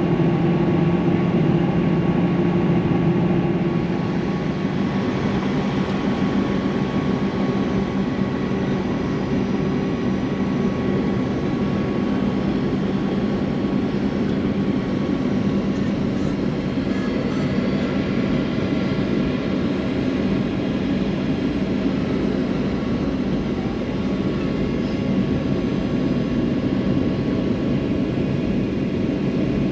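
Steady cabin drone of a jet airliner's engines and airflow, heard from a window seat while descending on approach. A low engine hum eases slightly about four seconds in, and the drone then stays even.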